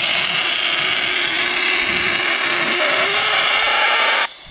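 Compressed gas rushing out of a high-pressure cylinder through its valve and hose into a balloon: a loud, steady hiss with a faint whistle in it. The hiss cuts off suddenly near the end.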